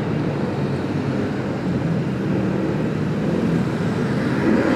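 Motorcycle engine running with steady wind and road noise while riding, picked up by a small wireless mic inside the helmet.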